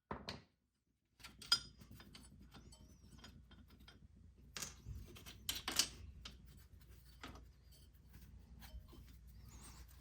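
A hammer blow on the stuck strut bolts at the very start. Then, after a cut, faint metallic clicks and clinks of tools and parts being handled, with a few louder knocks about halfway through.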